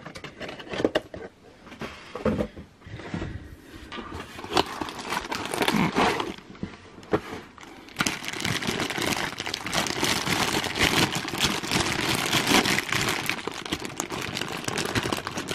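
Cardboard packaging being slid and handled, with scattered scrapes and knocks, then from about halfway a continuous crinkling of thin clear plastic bags holding the figure's parts.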